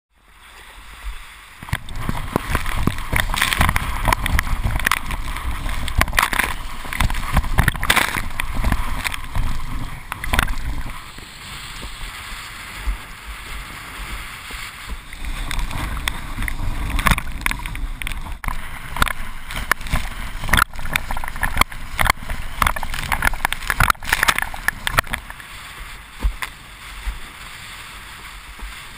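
Windsurf board planing over choppy water, heard from a GoPro on the boom: a steady rush of water splashing and slapping against the board, over a low wind rumble, swelling and easing as it crosses the chop.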